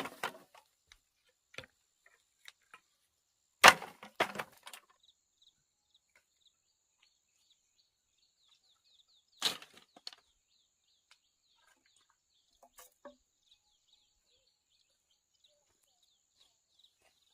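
Sharp knocks and cracks of wood: a strong one a few seconds in followed by a short run of smaller knocks, another about six seconds later, and a few faint clicks after that. A faint, high, quickly repeating chirping runs underneath.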